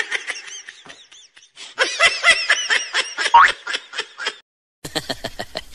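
Laughter in two long runs of quick, repeated "ha-ha" pulses, with a brief gap between them.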